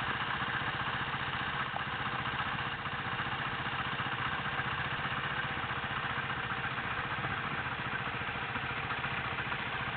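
Sinnis motorcycle engine idling steadily, an even run of firing pulses with no change in speed.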